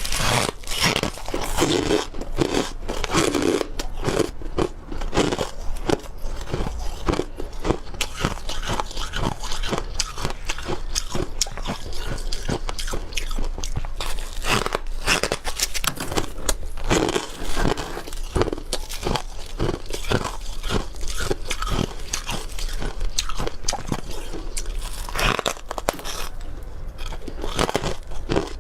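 Close-miked biting and chewing of dry freezer frost chunks: a dense, continuous run of crisp, squeaky crunches, several a second.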